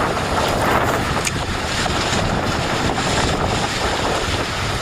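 Wind buffeting the microphone: a steady, loud rushing noise.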